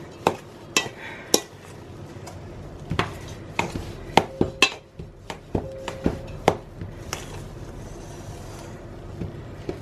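Metal spoon stirring crumbly cottage cheese in a stainless steel mixing bowl, clinking against the bowl's side about a dozen times with a short ring from the bowl. The clinks thin out and soften after about seven seconds.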